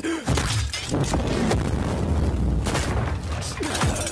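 Animated battle sound effects: one crash and blast after another with breaking debris over a steady deep rumble.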